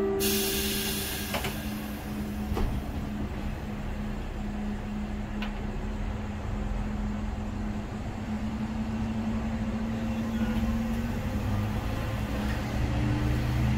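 Kanto Railway diesel railcar heard from the driver's cab, pulling away from a stop: the end of a short horn blast at the start, a couple of clunks, and the engine's steady tone climbing slowly as it accelerates, then shifting lower about eleven seconds in as the throttle setting changes.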